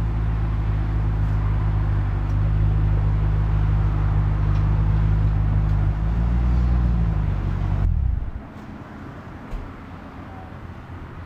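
Ford Shelby GT500's supercharged V8 idling with a low, steady exhaust rumble. It rises briefly about six seconds in, then cuts off suddenly about eight seconds in.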